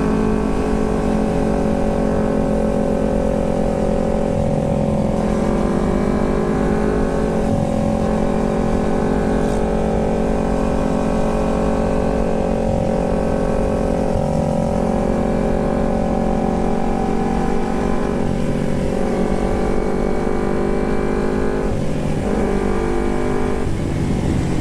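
Carbureted Kawasaki Ninja 250's parallel-twin engine running through an aftermarket Termignoni exhaust while riding. Its note holds steady and steps up or down in pitch every few seconds as the throttle changes.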